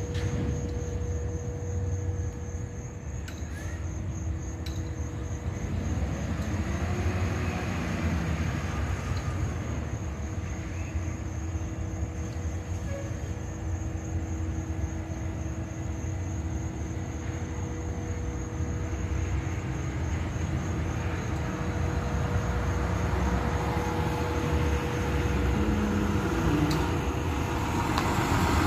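Diesel engine of a Volvo semi-truck tractor running, a low steady rumble that grows louder near the end as the truck pulls closer.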